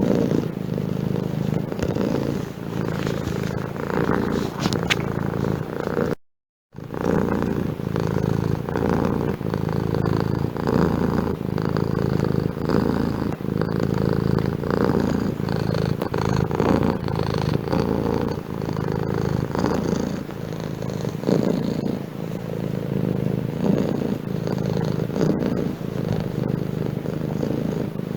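Domestic cat purring steadily, a continuous low rumble of rapid pulses, cutting out completely for about half a second around six seconds in.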